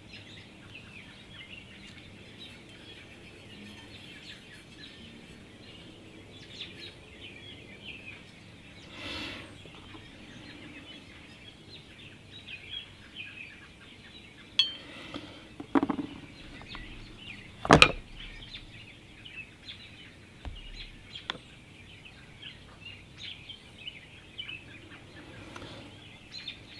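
Small clinks and knocks of metal air-gun parts and an oil bottle being handled on a workbench, the sharpest a single click about two-thirds of the way through, over steady faint birdsong.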